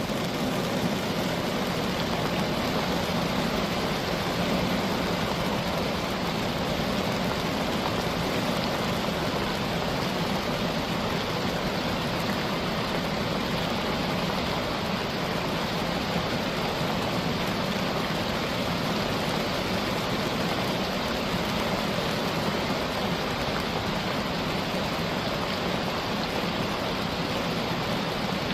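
Steady rain driven by wind, an even unbroken hiss with no distinct drops, gusts or passing cars standing out.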